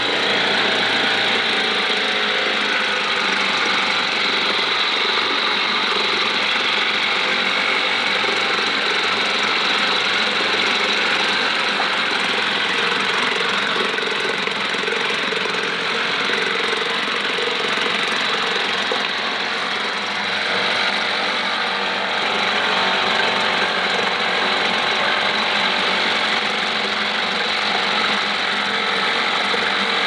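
British Seagull 40 Plus single-cylinder two-stroke outboard motor running steadily in a bin of water, its propeller churning the water.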